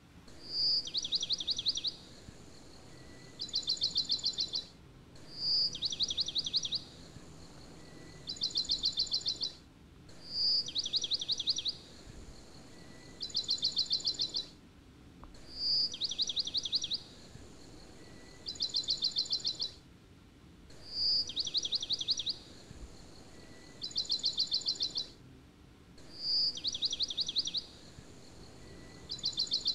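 Recorded songbird song looping as a background track: a short high note followed by two rapid trills, the same phrase repeating about every five seconds with brief cut-outs between repeats.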